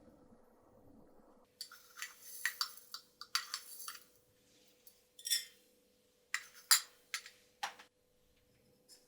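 A series of irregular sharp clinks and knocks, some briefly ringing, starting about a second and a half in and stopping near the end.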